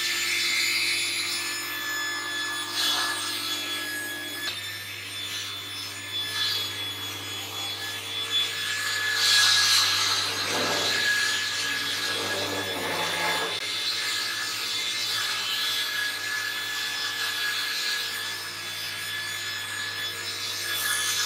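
Sliding panel saw ripping a rough timber board fed along the rip fence: the running blade with the rasp of the cut, which grows louder for a few seconds about halfway through.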